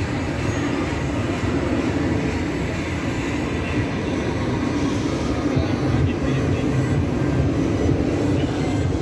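Aircraft engine noise at an air show: a steady, loud rumble.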